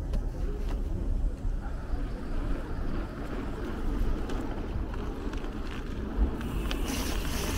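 Wind noise on the microphone and road noise while riding a bicycle along city streets, with a hiss rising near the end.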